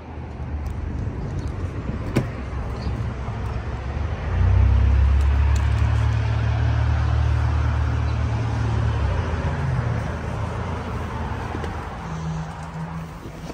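Low, steady rumble of a motor vehicle with a background of traffic-like noise, much louder for about four or five seconds in the middle. A sharp click about two seconds in.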